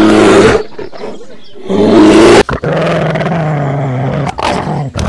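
Loud animal roars and growls: two harsh bursts, then a long low growl that sinks slightly in pitch, then short sharp bursts near the end.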